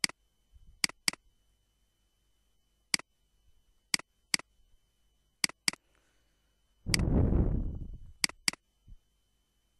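Computer mouse button clicking, about ten sharp clicks, some in quick pairs, as wires are placed in a circuit schematic. A louder rushing noise about seven seconds in lasts just over a second.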